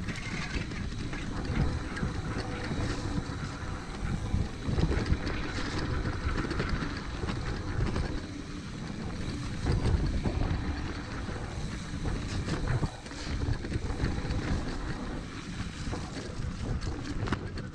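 Mountain bike riding fast down a dirt trail: wind rushing over the camera microphone, with tyres on dirt and the bike clattering over bumps.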